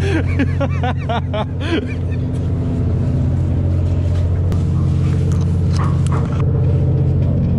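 Steady low drone of a fishing boat's running machinery, with a person's voice calling out briefly in the first two seconds and a few short knocks later.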